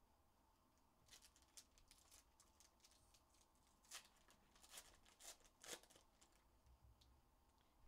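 Faint crinkling and tearing of foil Panini Prizm card packs being ripped open by hand: a string of short, sharp rustles starting about a second in.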